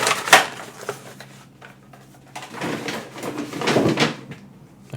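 Box packaging and cards being handled and put away on a desk: a sharp knock about a third of a second in, then rustling and shuffling a couple of seconds later.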